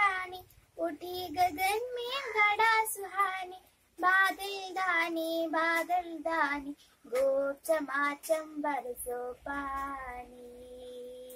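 A girl singing a Hindi poem on her own, with no instruments. Her phrases are drawn out with a wavering pitch, and a long steady note is held near the end.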